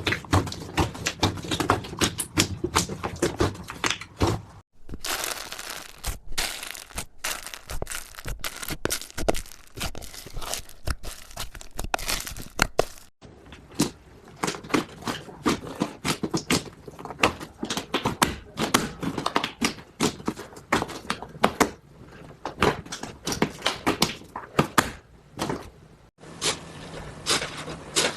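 Slime being squeezed and squished by hand, giving a dense run of small wet clicks and pops. The texture changes abruptly about 5, 13 and 26 seconds in as one clip gives way to the next.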